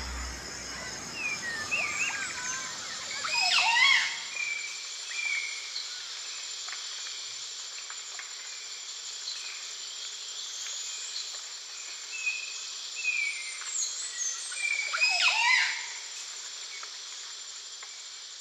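Nature ambience: a steady high-pitched insect drone with scattered short bird chirps, and two louder swooping calls, one about four seconds in and another about fifteen seconds in.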